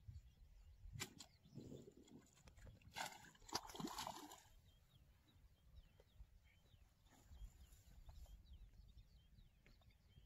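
Faint outdoor quiet with small birds chirping and a low wind rumble. About three seconds in there is a short splashy rustle with a few clicks as a small piranha is hauled out of the water on the line.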